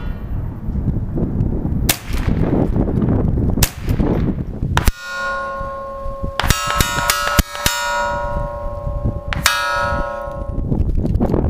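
Ruger 10/22 .22 LR rifle shots about every two seconds, then, from about five seconds in, a hanging steel target plate ringing with a clear metallic tone, struck by a quick run of sharp clangs and once more near the end.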